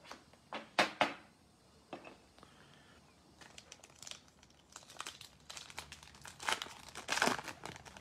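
Crinkling plastic wrapper of a 2020 Topps Holiday baseball card pack being handled and torn open by hand: a couple of sharp crinkles about a second in, then scattered crackling that grows denser and louder near the end as the wrapper is ripped and peeled.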